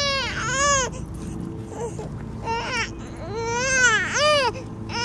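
A baby crying in repeated short wails, each rising and then falling in pitch.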